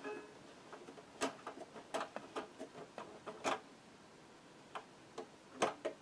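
Brother JS-23 sewing machine turned slowly by hand, giving a series of sharp, uneven clicks as the thread is released from the shuttle. The click is very big and the thread release is awful, a fault the mechanic places somewhere in the shuttle.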